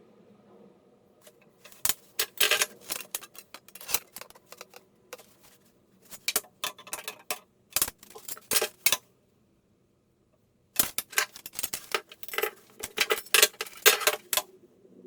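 Small hard objects clattering and clinking as they are handled, in irregular bursts of quick rattles, broken by a dead gap of under two seconds about nine seconds in.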